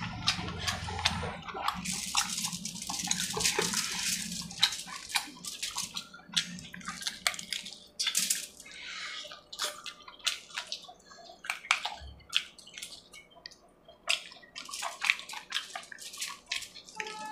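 Wet chewing and lip-smacking of a person eating chicken curry and puri with his fingers: an irregular run of short, sharp mouth clicks and smacks.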